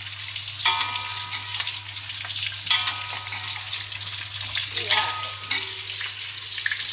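Frozen meatballs sizzling in shallow oil in a metal wok. A metal spatula stirs and scrapes them, knocking against the wok three times, and each knock rings briefly.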